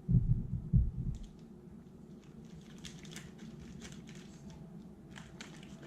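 Handling noise of small objects on a work surface: a few low bumps in the first second, then faint scattered clicks and taps.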